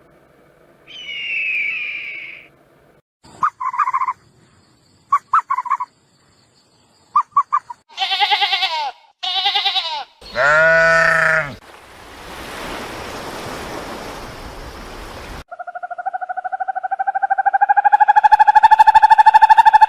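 A run of different animal calls, one after another. First come two pitched calls, then short chirps in small groups, then three louder cries and a few seconds of hiss, and finally a long, loud call that rises and swells near the end.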